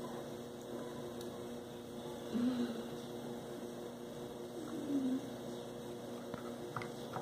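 Steady electrical hum, with two short low murmurs about two and a half and five seconds in, and a few faint clicks near the end.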